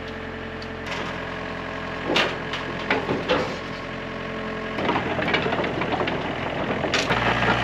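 Diesel engine of a 5-tonne mini excavator running as it drives down a trailer's ramps on its tracks, with several knocks and clanks as the tracks and blade come down. The engine gets louder about five seconds in and again near the end.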